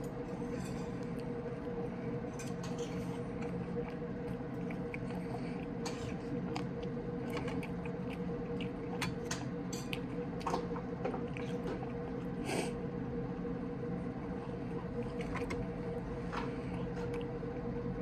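A person chewing air-fried chicken breast close to the microphone, with scattered small wet mouth clicks, over a steady background hum.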